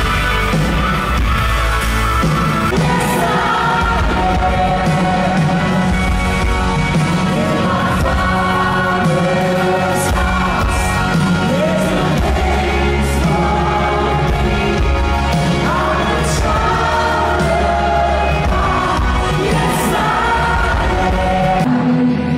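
A live worship band playing in a large hall, heard from the audience: a singer over drums, bass and guitars, with strong bass.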